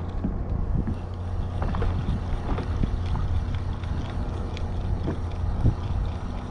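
Wind buffeting the microphone in a steady low rumble, with scattered small knocks and water splashes against a kayak hull.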